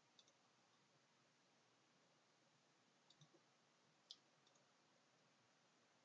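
Near silence with a few faint computer mouse clicks: a quick double-click near the start, another about three seconds in, a single louder click about four seconds in, then a faint pair just after.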